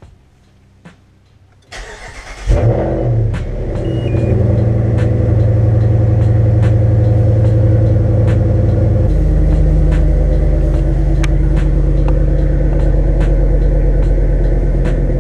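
Cold start of a Ram pickup's Hemi V8: the starter cranks briefly about two seconds in, then the engine catches with a loud flare and settles into a steady fast cold idle. The idle note deepens about nine seconds in. The truck is loud.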